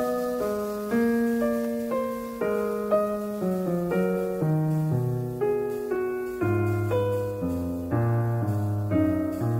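Background piano music, its notes changing about twice a second.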